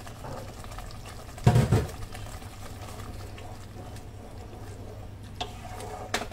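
Tomato puree bubbling in a non-stick kadhai as a spatula stirs it. About a second and a half in there is a loud clatter of a few quick knocks against the pan, and near the end two sharp taps.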